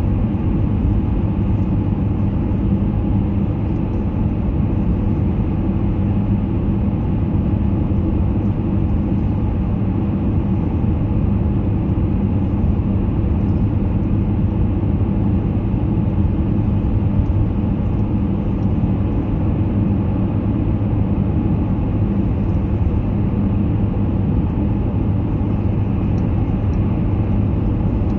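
Steady low drone of a car driving at a constant speed through a road tunnel, with engine and tyre noise heard from inside the cabin.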